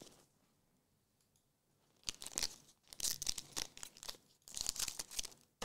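Foil booster pack wrapper being torn open and crinkled by hand, in three bursts of rustling after about two seconds of quiet, with a short knock right at the end.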